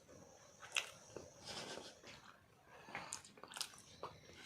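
Faint chewing and mouth sounds of people eating boiled eggs: soft wet smacks and small clicks at irregular moments.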